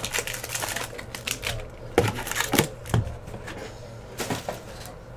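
Trading cards being handled and sorted by hand: irregular light clicking and flicking, with a few sharper snaps about two to three seconds in.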